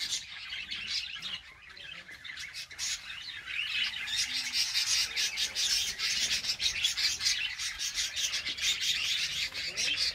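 A flock of birds chattering, a dense mass of overlapping chirps and squawks that thins briefly about a second in and then picks up again.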